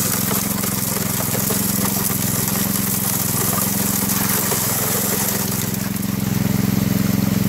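Small gasoline engine of a water pump running steadily, the pump feeding a sluice box through a hose, with water rushing out of the sluice into the creek.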